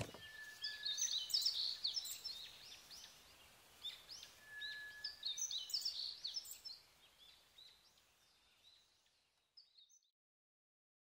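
Birdsong sound effect: small birds chirping in quick runs of high notes, dying away about seven seconds in, with one last faint chirp near ten seconds.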